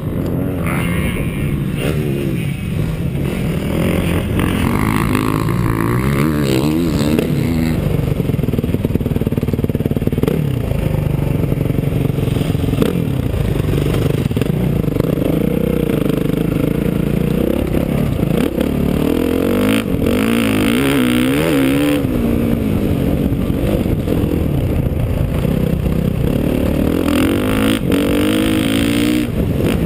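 Motocross dirt bike engine revving hard and repeatedly rising and falling in pitch as the rider accelerates, shifts and backs off around the track, heard close up from the rider's seat.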